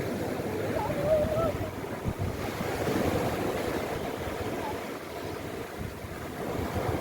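Sea waves washing on the shore, a steady rushing with wind buffeting the microphone. About a second in there is a brief, faint wavering call.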